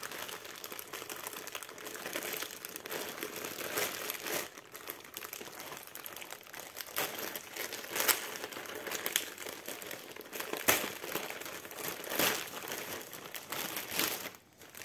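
Grey plastic postal mailer bag crinkling as it is worked and torn open by hand, in continuous rustling with a few sharp, louder crackles.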